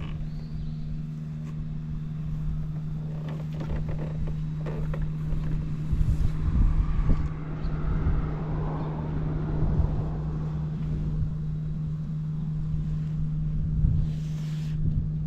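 Honda Live Dio AF35 scooter's 50cc two-stroke engine running steadily at idle, with a louder spell in the middle where the pitch rises and falls. It runs clean, without abnormal noises.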